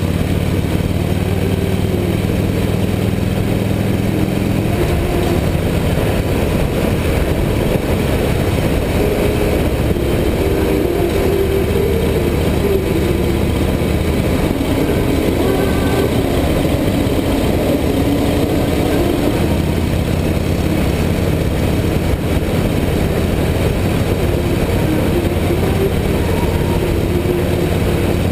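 Harley-Davidson motorcycle's V-twin engine running steadily at cruising speed, with road noise from the moving bike.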